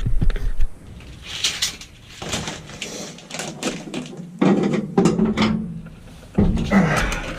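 Irregular rustling, scraping and small knocks of wrap material being pulled and fitted by hand in a truck cab, busier in the second half.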